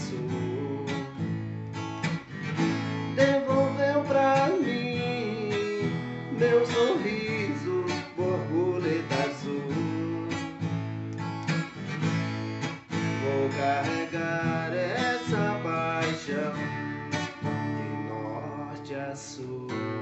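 Acoustic guitar played alone in an instrumental passage of a song: steady strummed chords with a melody line picked over them.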